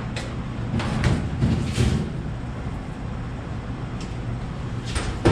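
Knocks and clunks of a cut-down sheet-steel truck toolbox being handled and lifted, with a loud bang near the end as it strikes something, over a steady low hum.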